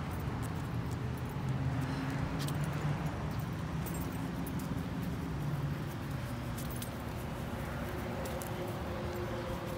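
Scattered light metallic jingles and clicks over a steady low hum.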